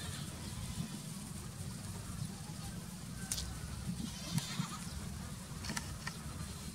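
Goats bleating now and then over a steady low rumble, with a couple of sharp clicks.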